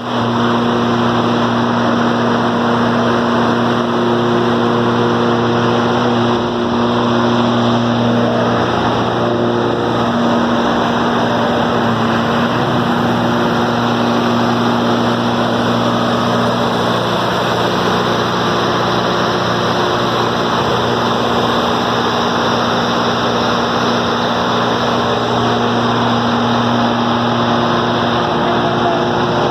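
Cummins 6CT inline-six diesel engine running steadily at an unchanging speed.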